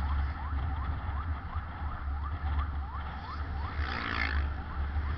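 Ambulance siren in a fast yelp, short rising whoops repeating about two and a half times a second, over a steady low rumble. A brief louder burst about four seconds in.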